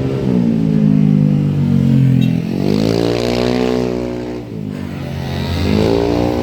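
Tour bus engine accelerating as it passes: its pitch sags, climbs for about two seconds, drops suddenly at a gear change after about four and a half seconds, then climbs again.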